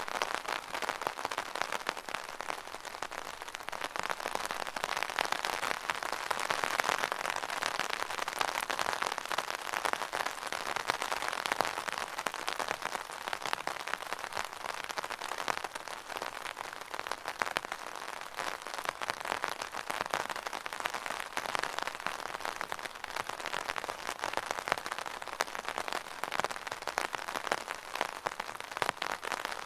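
Rain pattering steadily on an umbrella, a dense stream of small drop taps.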